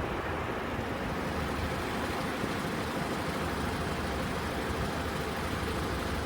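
Steady outdoor background noise with a low, even rumble, in the manner of distant road traffic.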